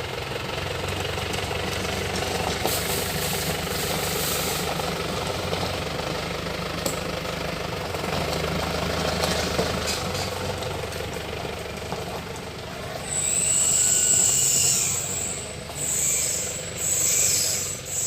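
A vehicle engine running steadily with an even low drone. About thirteen seconds in, a loud high-pitched buzz joins it, swelling and fading in pulses.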